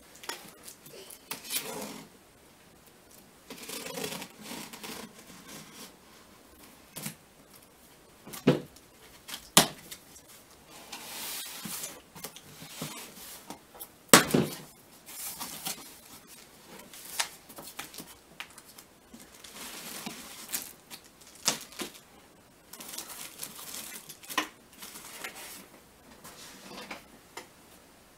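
A cardboard box being opened: a knife cutting the packing tape, then the cardboard flaps being pulled open and the contents handled, with rustling, tearing and scraping. Scattered sharp knocks run through it, the loudest about 14 seconds in.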